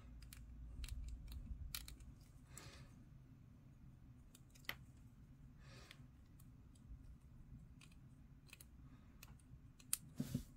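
Faint handling of a small plastic miniature part against a small metal hobby tool: scattered light clicks and a few short, soft scrapes, with a couple of louder clicks near the end.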